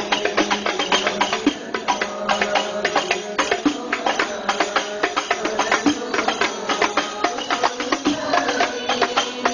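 Men singing a devotional Arabic sholawat, with a lead voice over a microphone, over fast, dense strokes of hand-struck frame drums (rebana).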